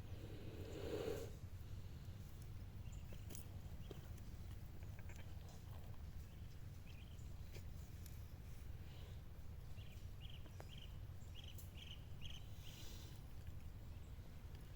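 A single short animal call about a second in, over a steady low rumble, with several short faint chirps later on.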